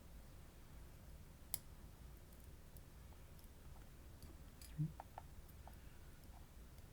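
Small metal parts of a disassembled wafer lock clicking as they are handled and set down: a sharp click about a second and a half in, then a louder tap near five seconds followed by two faint clicks, with a few light ticks in between.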